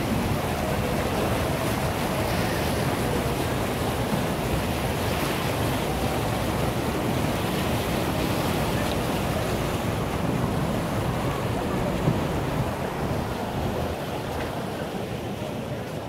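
Steady rushing outdoor noise with wind buffeting the microphone over a low city-and-river rumble, with one brief knock about twelve seconds in.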